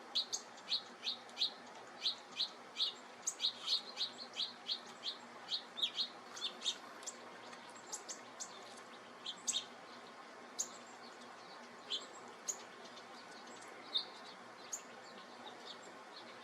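Small birds giving short, sharp chip calls: a quick run of about three a second for the first several seconds, then scattered single calls.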